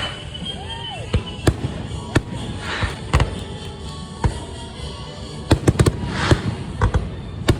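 Fireworks going off: a string of sharp bangs and cracks, with a quick run of pops around five and a half seconds in and hissing bursts about three and six seconds in.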